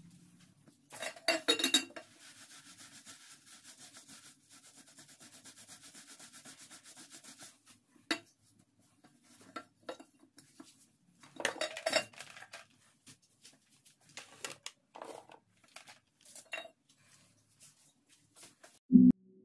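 Cloth wiping back and forth across a tiled kitchen countertop in a steady scrubbing rhythm, broken by sharp clacks of plastic kitchen items being picked up and set down on the tiles.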